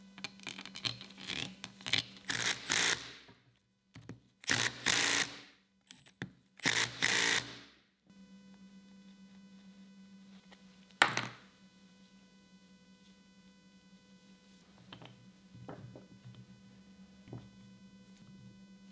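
Steel parts of a three-jaw lathe chuck clinking and clicking against each other as it is put back together. A quick run of small metallic clicks comes first, then two short rasping noises, one loud metallic clink about eleven seconds in, and a few faint taps near the end.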